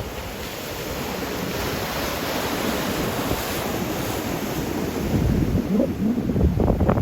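Ocean surf washing and breaking on the beach, with wind buffeting the microphone; the wind gusts grow stronger near the end.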